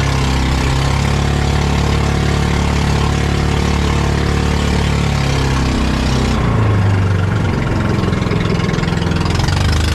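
Service boat's engine running under way at speed, with a rushing hiss of wind and water over it. About six seconds in, the engine note drops and the hiss falls away as the boat slows.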